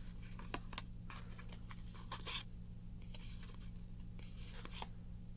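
Baseball trading cards being handled and flipped through: scattered light clicks and rustles of card stock over a steady low hum.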